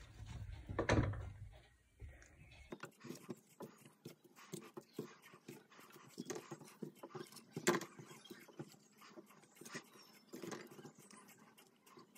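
Vegetable pieces set by hand into a clay tajine: quiet, irregular soft knocks and rustles as carrots, courgette and potato wedges are laid on the pile, with a louder handling knock about a second in.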